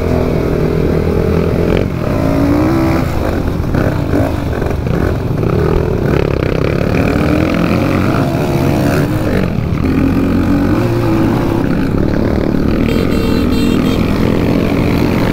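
Dirt bike engines of a group of Crossfire riders running and revving while climbing uphill, the engine note rising and falling repeatedly with the throttle.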